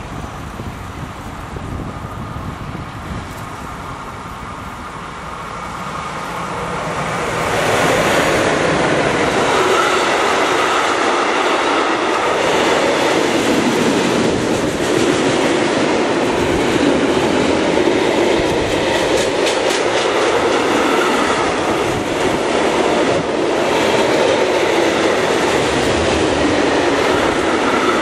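Freight train of tank wagons behind an electric locomotive approaching and passing close by: a faint rumble at first, growing louder from about six seconds in, then a loud steady rumble and rattle of the wagon wheels on the rails, with a few clicks.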